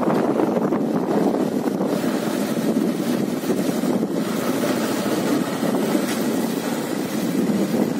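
Steady rushing noise of a motorbike being ridden: wind on the microphone blended with engine and road noise, with no distinct engine pitch.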